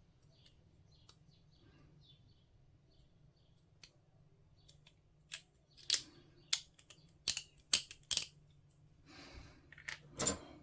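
Hobby sprue cutters snipping plastic miniature parts: a run of about seven sharp clicks in the second half, after faint scratching at the start.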